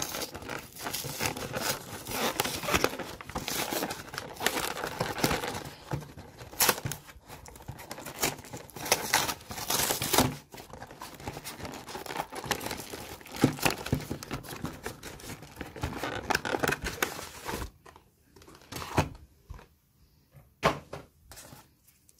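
Plastic wrapping on a trading-card box crinkling and tearing as it is pulled off by hand, in a dense run of crackles that thins out to a few scattered rustles and clicks near the end.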